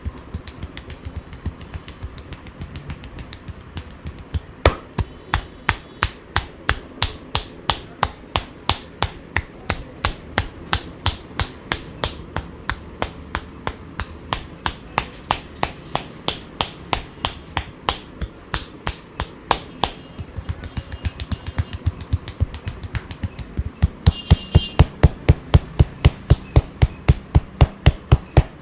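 A barber's hands striking the client in rapid percussive massage (tapotement), an even run of about three to four slaps a second, louder in the last few seconds.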